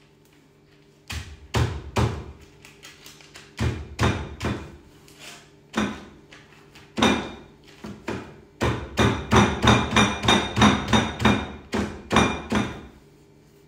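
Repeated thuds of cooked pork being pounded to break it into floss. The blows come in short scattered groups, then settle into a steady run of about three blows a second in the second half.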